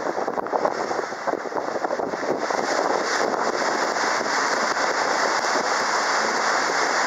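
Small open cruise boat under way: a loud, steady rush of motor and water noise with wind on the microphone, crackly for the first couple of seconds and then smoother.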